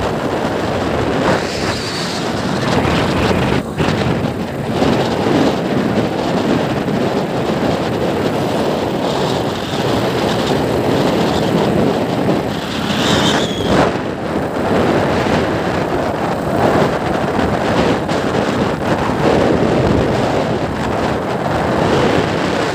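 Wind rushing over the microphone of a motorcycle riding at speed on an open highway, a loud steady rushing.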